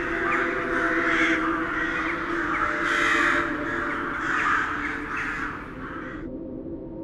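Several crows cawing over and over in harsh, overlapping calls that cut off suddenly about six seconds in, over a low steady drone.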